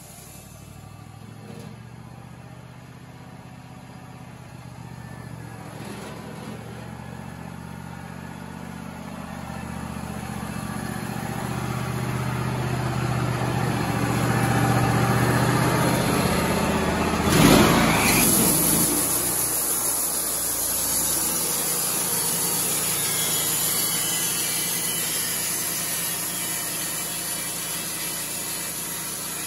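Wood-Mizer LT35 portable sawmill's engine running, getting steadily louder from about ten seconds in. Near the middle there is a brief loud surge, and after it a steady high hiss runs on over the engine.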